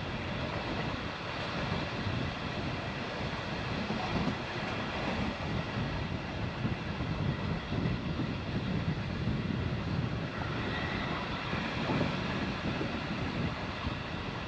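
Metre-gauge passenger train running steadily at speed: an even rumble of wheels on rail with a rush of air.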